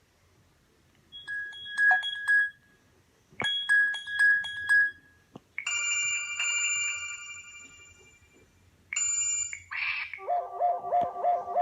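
A series of short Samsung Galaxy Y ringtones and alert tones played one after another, with silence between them: two brief electronic note patterns, then a ringing chord that fades over about two seconds, a short tone, and near the end a rapid run of repeated notes.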